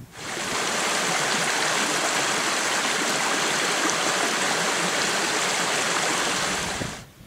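Shallow rocky beck rushing and splashing over stones in a steady rush of water. It starts suddenly and cuts off sharply near the end.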